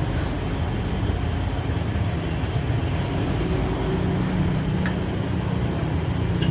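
A running engine or motor with a steady low rumble; a steady low hum comes in about four seconds in.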